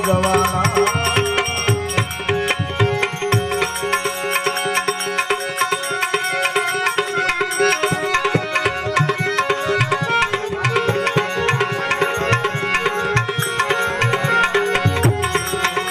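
Instrumental opening of a Gujarati devotional bhajan: tabla keeps a quick rhythm under a sustained melody line, with no singing yet. A deep bass note sounds under it for the first four seconds or so.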